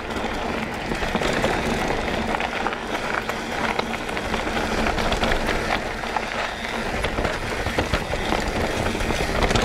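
Mountain bike rolling along a dirt forest trail: steady tyre noise on the loose surface, with frequent small clicks and rattles from the bike over roots and stones.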